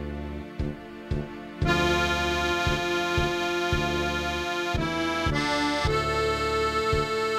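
Roland digital accordion playing an orchestrated arrangement with layered instrument voices over a steady bass beat of about two pulses a second. About a second and a half in, a full sustained chord swells in over the beat and holds.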